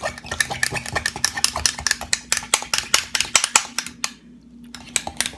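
A utensil stirring and clinking against a bowl of melted soap mixture, with rapid clicks several times a second, a brief pause about four seconds in, then more clinks near the end.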